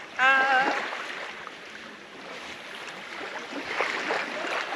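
Soft, steady wash of small waves on a lagoon beach, mixed with a light breeze, swelling a little near the end.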